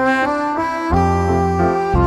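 Upbeat background music with a brass or saxophone-like lead melody over a bass line that comes in about a second in.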